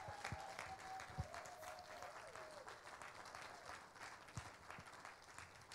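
A congregation applauding with scattered hand claps that slowly thin out. A faint held tone wavers under the first half and fades out.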